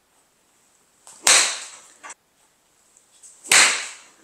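Two golf wedge swings on an artificial-turf hitting mat: each is a sudden, sharp strike of the club through the mat that fades out quickly. The first comes about a second in and the second about three and a half seconds in.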